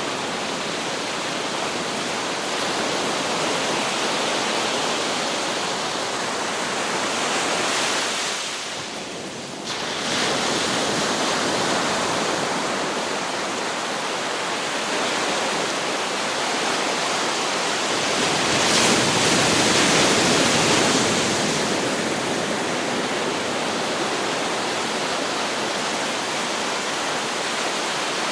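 Ocean surf on a beach: a continuous rushing hiss of waves, with a brief lull about eight seconds in that ends abruptly, and a wave swelling louder a little past the middle.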